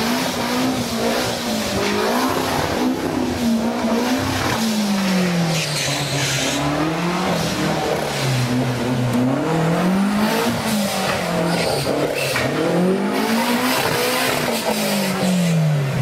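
Off-road 4x4's engine revving up and down over and over as the vehicle drives through a rocky river, with water splashing and rushing around it. The engine holds fairly steady at first, then from about four seconds in rises and falls roughly every two seconds.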